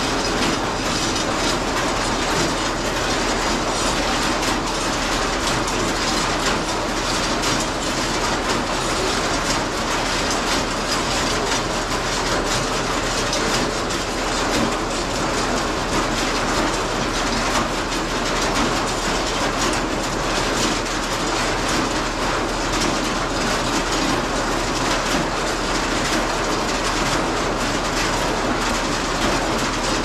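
Hay bale elevator running, its chain conveyor clattering steadily.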